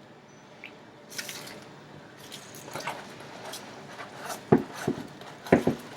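Plastic cling wrap being pulled out and handled on a kitchen counter: scattered crinkles and small clicks, with two loud dull knocks about a second apart near the end.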